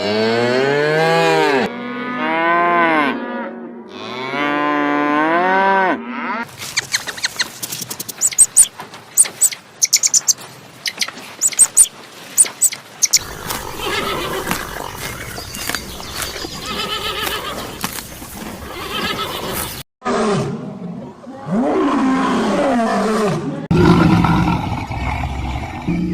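Different animal calls following one another. First come three long calls that rise and fall in pitch, then a run of sharp cracking sounds, then a noisier stretch, and after a brief break more rising-and-falling calls.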